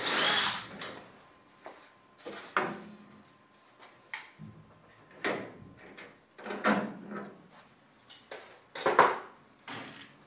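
Cordless drill run in a series of short bursts, drilling rivet holes through a thin aluminum flap stiffener and wing skin. Each burst lasts about half a second, with pauses between; the first and the one near the end are loudest.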